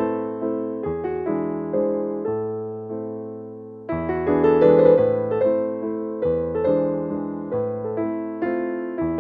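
Background piano music: struck notes and chords that die away. It thins out about three seconds in and comes back fuller at four.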